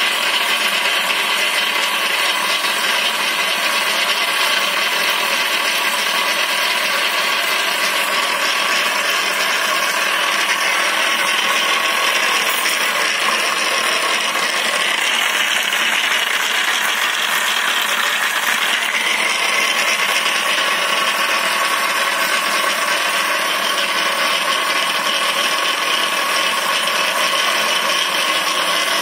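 High-speed magnetic stirrer running steadily at about 2,500 rpm, its motor and spinning stir bar making a constant high whir while stirring a vortex in a beaker of water.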